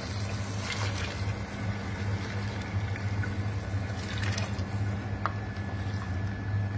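Water poured from a bowl into a pan of chicken pieces, splashing and pattering into the liquid twice, about a second in and again about four seconds in. A steady low hum runs underneath.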